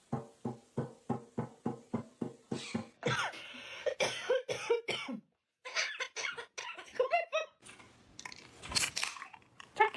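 Parrot making a quick run of cough-like sounds, about four a second, then a few seconds of more irregular vocal sounds.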